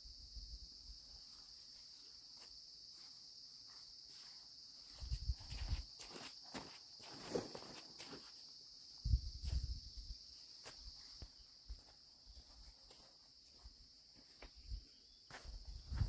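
Steady high-pitched chirring of crickets or other insects, with scattered clicks and rustles and a few short low thumps, as of footsteps or gear being handled.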